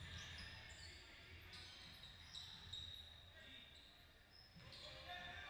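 Faint basketball game sounds in a gym: sneakers squeaking on the court, a ball bouncing, and distant voices.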